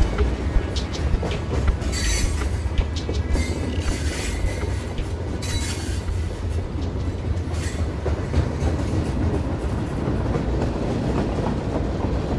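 Train running on the track: a steady low rumble with several brief bursts of high hiss and a faint high wheel squeal in the first couple of seconds.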